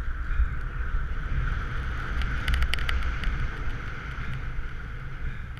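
Skiing downhill: wind buffeting the microphone over a steady hiss of skis sliding on snow, with a quick run of sharp clicks about two and a half seconds in.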